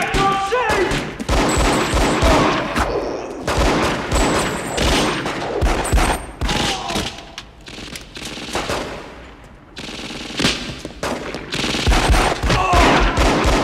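Heavy exchange of gunfire, pistols among the guns, with many shots in rapid strings. The shooting eases for about two seconds just past the middle, then picks up again.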